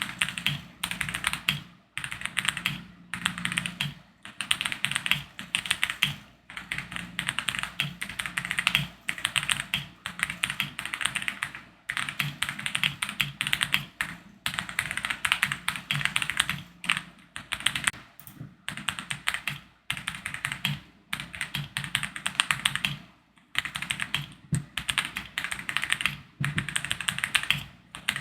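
Typing on the OM65 65% mechanical keyboard with Boba U4T tactile switches and MOA keycaps: quick runs of clacking keystrokes, broken by short pauses every second or two.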